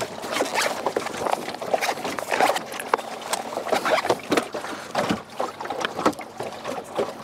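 Handling noise from gloved hands fumbling with an action camera and its plastic mount close to the microphone: a rapid, irregular run of clicks, knocks and rubbing.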